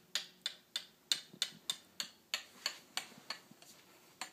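A run of light, sharp clicks or taps, about three a second and slightly uneven in spacing.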